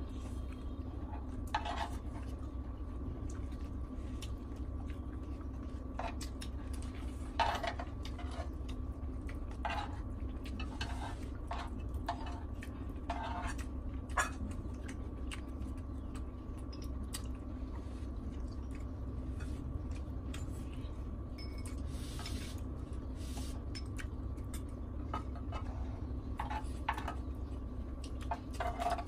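Spoons and chopsticks scraping and clinking against a grill pan as food is scooped up, in scattered short strokes over a steady low hum.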